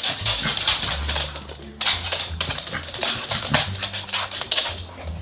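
Wet Pembroke Welsh corgi scrabbling and rubbing about on a fabric dog bed: rapid scratching, rustling and claw clicks.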